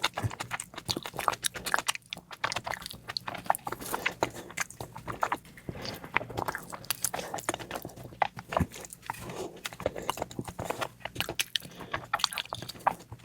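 A person eating close to the microphone: chewing and biting food, with a dense run of irregular wet mouth clicks and smacks.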